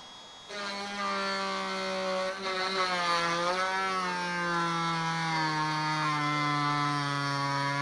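Power drill running with its bit working at a fastener on the motorcycle seat's steel pan. It starts about half a second in and runs steadily, its pitch sinking slowly as it goes.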